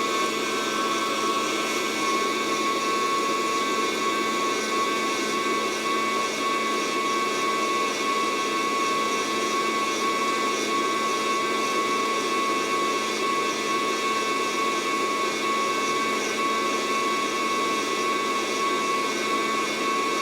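Fresh Roast SR800 hot-air coffee roaster running steadily, its fan and heater blowing the beans around in the chamber, with a constant whine under the air rush. No first-crack pops are heard: the beans have not reached first crack.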